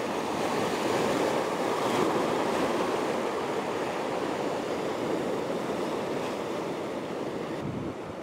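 Sea waves breaking and washing over a rocky shore ledge, a surge swelling to its loudest about two seconds in and then slowly easing off as the water drains back.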